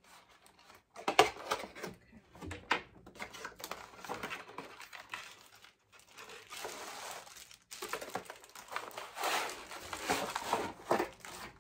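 Cardboard box and plastic packaging of a flat iron being opened by hand: irregular rustling, crinkling and scraping, with a sharp click about a second in and longer stretches of rustling in the second half.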